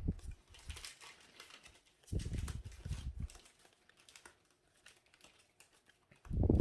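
Trading cards and plastic sleeves being handled on a table: light clicking and rustling, with a low muffled bump about two seconds in.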